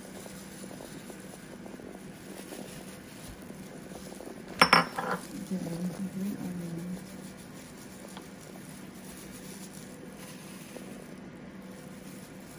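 A single sharp clink of dishware or cutlery about four and a half seconds in, ringing briefly, over a low steady hum.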